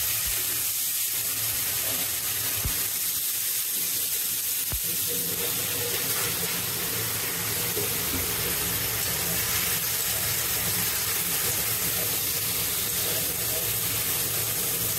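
Potato sticks frying in hot oil in a kadai: a steady sizzle, with a low hum under it and a couple of faint knocks early on.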